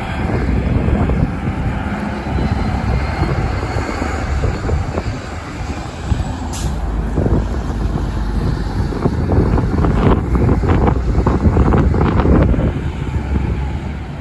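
A bus running with a steady low rumble, a brief sharp hiss about halfway through, and a rattling that grows louder near the end.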